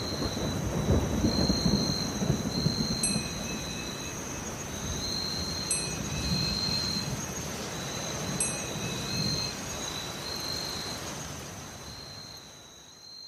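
Automatic flowmeter cooking-oil filling line running: a steady rushing noise with a high whine, and a sharp click about every two and a half seconds as the machine cycles.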